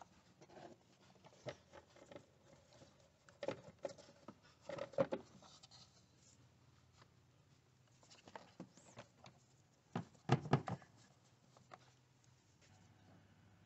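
Hard plastic air filter box lid of a Toyota Highlander being set over the filter and worked into place: scattered short knocks, scrapes and clicks of plastic on plastic. The loudest clusters come about three and a half to five seconds in and again about ten seconds in.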